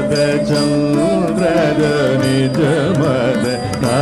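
Carnatic song in raga Nilambari, Adi tala, from a live orchestra recording: a melody with sliding, wavering ornaments over a steady low held note, with light percussion strokes.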